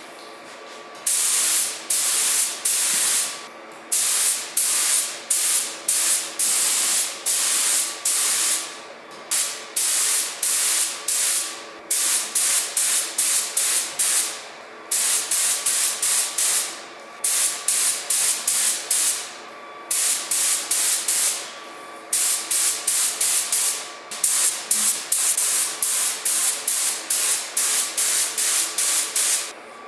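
A spray nozzle hissing in many short bursts, fired in quick runs of passes with brief pauses between runs, over a faint steady hum.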